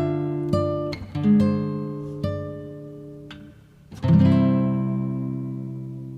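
Background music on acoustic guitar: a few plucked notes, then a chord strummed about four seconds in that rings out and slowly fades.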